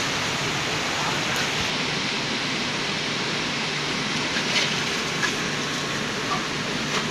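A steady, even hiss throughout, with a few faint knocks in the second half.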